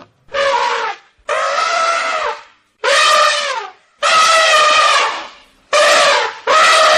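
A wind-instrument melody: a run of held notes about a second each, many sliding down slightly at their ends, separated by short silences.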